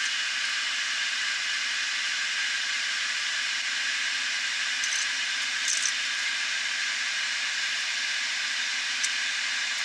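A steady hiss of rushing air, like a compressed-air blow-off, with a few faint ticks. It cuts off abruptly just after the end.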